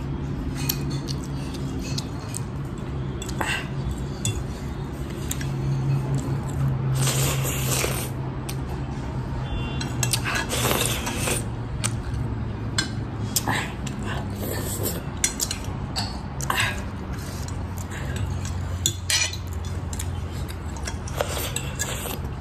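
Metal fork clinking and scraping on a ceramic plate while the last noodles are gathered up, with a few louder slurps as they are eaten straight off the plate.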